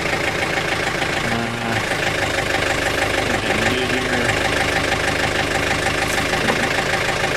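John Deere 110 TLB backhoe's diesel engine running steadily.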